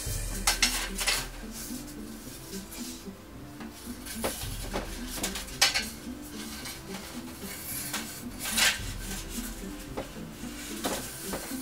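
Metal Venetian blind slats clattering and rattling against each other in several irregular bursts as they are handled and shifted on their ladder strings. Background music plays underneath.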